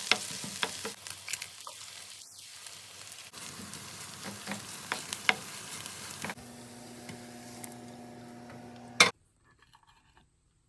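Food sizzling in a frying pan, with sharp clicks and scrapes of a utensil stirring it. About six seconds in, a steady hum joins. A loud click about nine seconds in ends it, and the rest is quiet.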